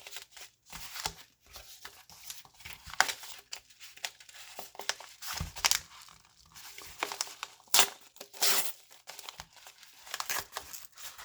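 Packing tape and protective wrapping being torn and crinkled by hand as a package is opened: irregular rips and rustling with several sharper tears.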